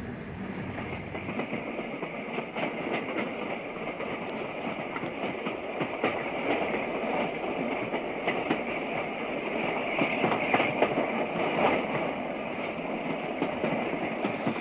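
Steam-hauled branch-line train running along the track, its carriage wheels clicking over the rail joints amid a continuous rattle and rumble, growing a little louder after the first few seconds.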